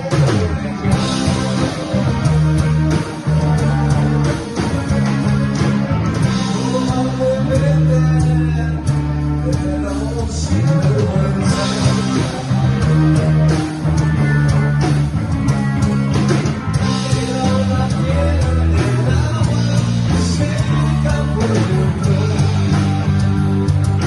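Rock song with guitar and a singing voice, playing steadily.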